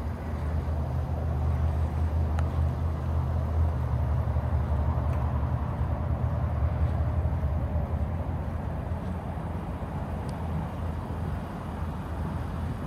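Ram 1500's 5.7 HEMI V8 idling steadily, a low even hum that is loudest over the first half.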